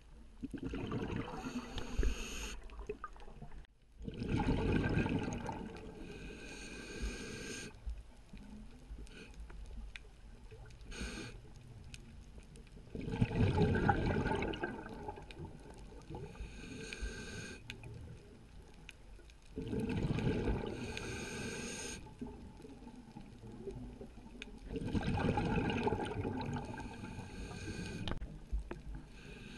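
A scuba diver breathing through a regulator underwater: rushing, bubbling breaths that come in cycles every few seconds, about five in all, with quieter water hiss between them.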